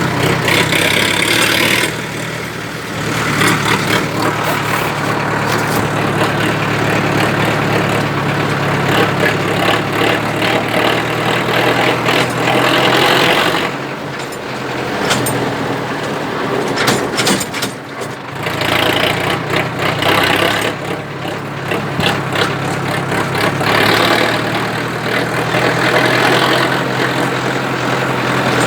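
Sonalika DI 750 tractor's diesel engine running through a newly fitted silencer on the road, a steady low engine note whose loudness dips now and then.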